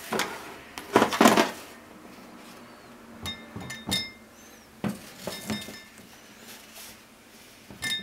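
Plastic bowls being moved and set down on a stainless steel counter: a louder clatter about a second in, then several short, ringing clinks.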